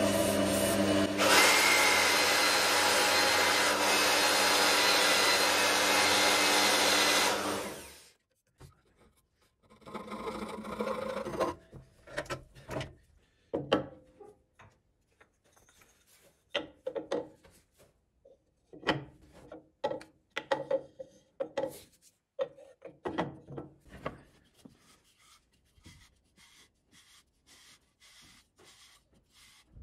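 Wood lathe running with a steady mechanical hum while a hand holds sandpaper against the spinning wooden barrel, a rasping hiss over it, cutting off about eight seconds in. After a brief rustle, a scattered series of light wooden knocks and clicks follows as the barrel and its lid are handled on the lathe's bed.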